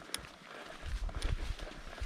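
Footsteps of hikers walking on a mountain trail: uneven thuds with a sharp click just after the start.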